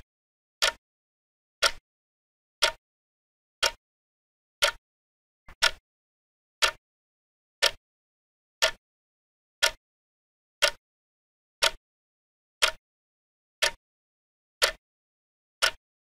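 Clock ticking, one sharp tick each second with silence in between; about halfway through, one tick comes with a faint extra click just before it.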